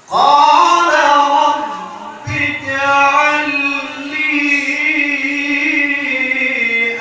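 A man reciting the Quran in the melodic tilawah style, starting abruptly at full voice with ornamented held notes, breaking off briefly about two seconds in, then sustaining one long, wavering high note to near the end.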